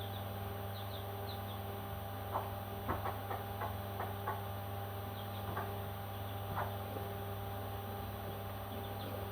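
Baby parrots giving scattered short, high chirps and peeps over a steady electrical hum.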